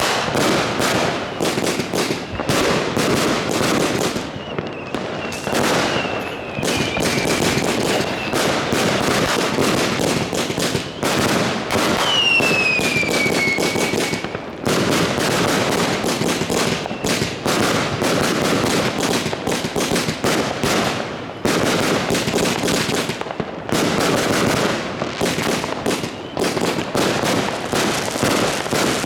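Fireworks going off in a dense, unbroken barrage of rapid bangs and crackling from firecrackers and aerial shells. Two falling whistles cut through it, a fainter one after about five seconds and a louder one near the middle.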